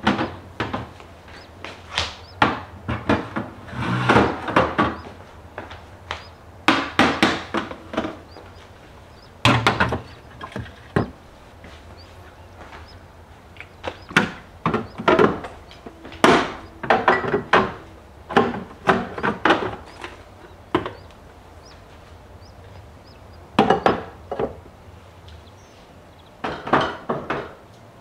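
Bottles and jars being set into refrigerator door bins and onto shelves: clusters of short knocks and clinks, with a few quieter gaps between them.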